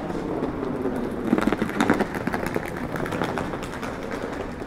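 City street ambience: a steady mix of traffic and street noise with scattered clicks and clatter, loudest about one and a half seconds in.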